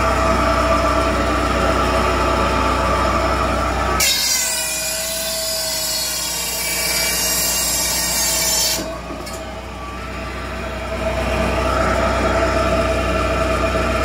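Firewood processor running steadily; about four seconds in its saw starts cutting down through a log, a loud hissing cut lasting about five seconds, and the machine then runs on steadily.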